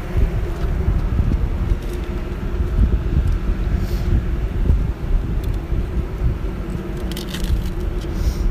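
Steady low hum and rumble of a large generator running, with a few faint clicks over it.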